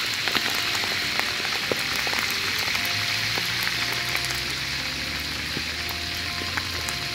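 A whole pomfret deep-frying in hot oil in a wok: a steady sizzle with many small pops. Soft background music with held notes comes in about three seconds in.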